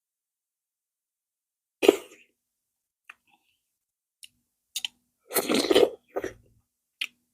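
Close-up mouth sounds of a person eating plantain fufu with okra soup. A short sharp sound comes about two seconds in and a few small clicks follow. A longer, louder sound of under a second comes past the five-second mark, with a smaller one just after it.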